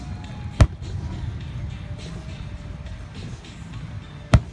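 Two fireworks shells bursting, a sharp bang about half a second in and another near the end, over a steady low rumble.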